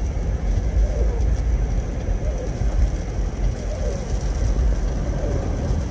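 Car interior road noise while driving on a snow-covered road: a steady low rumble, with a short squeaky sweep in pitch about every one and a half seconds.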